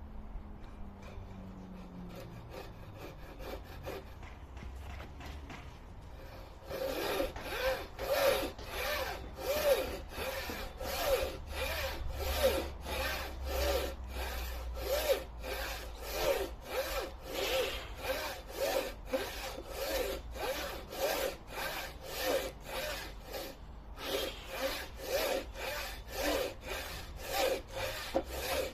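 Wooden frame saw ripping a board along the grain, in a regular back-and-forth rhythm of rasping strokes. The first few seconds are lighter and quieter; from about seven seconds in, each stroke is louder and carries a short wavering ringing tone. There is one brief break in the strokes late on.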